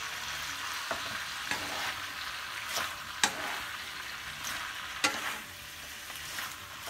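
Cabbage and squid sizzling in a frying pan as a wooden spatula stirs and turns them, with several sharp knocks of the spatula against the pan over a steady frying hiss.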